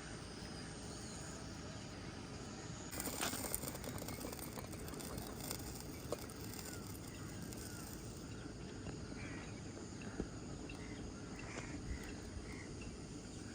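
Outdoor ambience: a steady low background noise with a few faint bird chirps, and a louder rustling, hissing noise from about three to eight seconds in.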